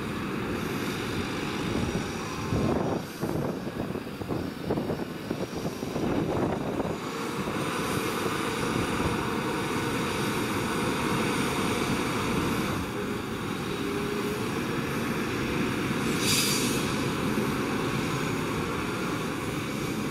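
Fendt 724 Vario tractor's six-cylinder diesel engine running steadily under load, driving the chaser bin's unloading auger as spring oats pour into a trailer. The sound is uneven and rumbling for the first few seconds, then settles to a steady drone from about seven seconds in.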